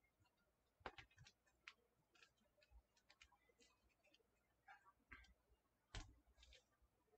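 Near silence, with faint scattered clicks and rustles of hands handling artificial greenery, ribbon and wired fish ornaments on a wreath. The two loudest clicks come about a second in and about six seconds in.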